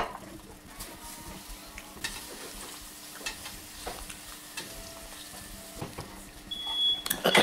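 Salmon fillets sizzling in butter in a stainless steel frying pan, with light scrapes and clicks of a spoon as the butter is basted over them. Near the end a smoke alarm starts sounding a high beep, with a clatter at about the same time.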